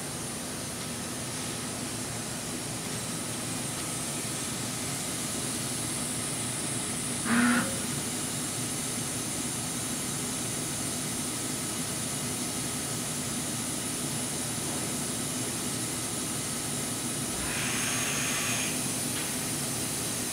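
Steady hum and hiss of a powered-up Kitamura Mycenter 2X vertical machining center standing idle. A short, loud tonal blip comes about seven seconds in, and a louder hiss comes near the end.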